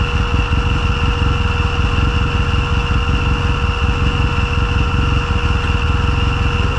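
Arctic Cat Wildcat Trail 700 side-by-side's engine idling steadily, heard from inside the cab.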